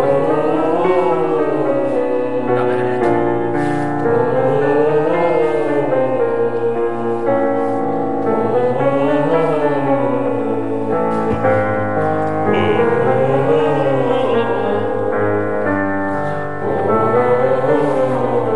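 Group vocal warm-up: several singers sing a short scale up and back down, repeated about every four seconds, over piano chords.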